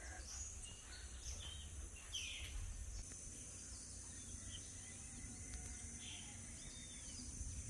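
Faint tropical dawn ambience: a steady high-pitched insect chorus with a few short bird chirps scattered through it, and a low rumble of wind on the microphone.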